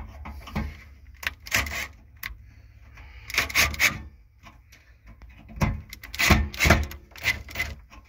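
Hand screwdriver turning screws into a gas water heater's sheet-metal casing, giving several short bursts of scraping and rubbing of metal on metal, bunched together in the second half.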